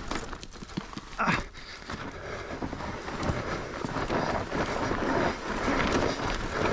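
Mountain bike tyres skidding and crunching over loose, steep dirt and rock on a descent, with the bike rattling and wind on the microphone. A brief louder burst comes about a second in.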